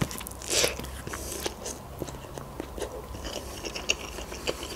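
Close-miked eating of Big Bon Max instant noodles: a short slurp of noodles about half a second in, then chewing with many small wet mouth clicks.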